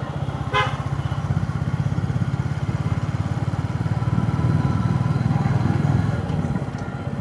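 Motorcycle engine running steadily while riding, its firing pulses dense and even throughout, with a short beep about half a second in.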